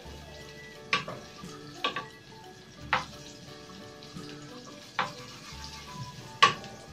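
Butter sizzling as it melts in a steel frying pan, stirred with a wooden spatula that knocks sharply against the pan several times, the last knock the loudest.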